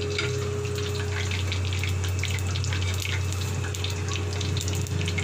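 Pakora batter frying in a pan of hot oil, sizzling with many small crackles: a test bit of batter dropped in to check whether the oil is hot enough. A steady low hum runs underneath.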